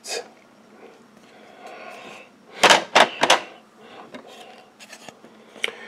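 Hard plastic graded-card cases (PSA slabs) being handled and knocking together: three or four sharp clacks close together about two and a half seconds in, with faint rustling and small clicks of handling around them.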